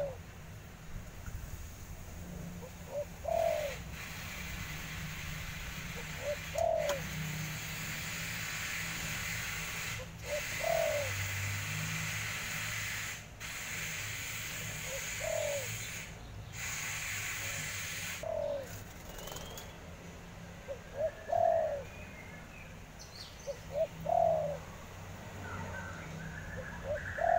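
Spotted dove (derkuku) cooing: a short phrase of a few soft notes, repeated about every three seconds. Small birds chirp faintly near the end.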